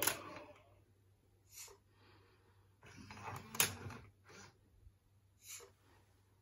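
Small robot toys making a few short, soft electronic sounds, one now and then and a brief cluster with a click in the middle.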